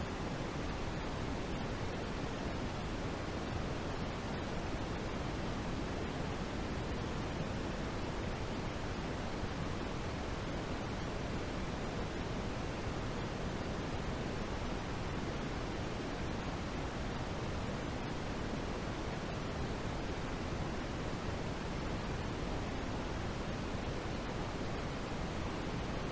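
Steady white-noise hiss, even and unchanging, fuller in the low end than the high.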